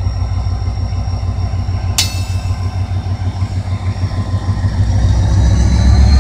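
EMD GT-22CW diesel-electric locomotive pulling a passenger train away from the station, its diesel engine's low, pulsing rumble growing louder as it draws close. A high whine rises in pitch near the end, and there is a single sharp click about two seconds in.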